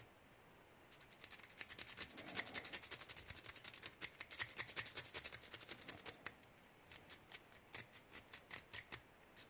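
Bogota rake working in the pin tumbler keyway of a Syneco padlock: faint, rapid metallic clicking and scraping as the rake is run over the pins, thinning to slower separate clicks in the last couple of seconds.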